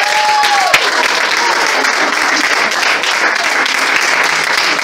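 A group of people, the workshop's children among them, applauding: dense, steady clapping with no let-up.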